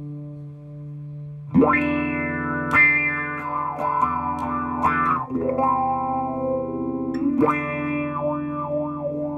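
Electric guitar played through an EarthQuaker Devices Spatial Delivery envelope filter in upward-sweep mode, band-pass blended toward low-pass: each hard-picked chord opens with a quick rising filter sweep, a funky auto-wah sound. A held chord fades out, then four chords are struck, with muted string scratches between them.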